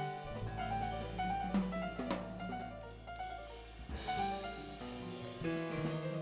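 Instrumental music with held keyboard and bass notes and drum and cymbal hits.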